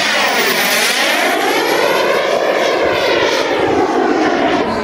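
Giant-scale turbine-powered RC model Tornado jet flying past, a loud rushing jet sound. The tone sweeps down and then back up as it passes, and a thin high turbine whine drops in pitch about a second in.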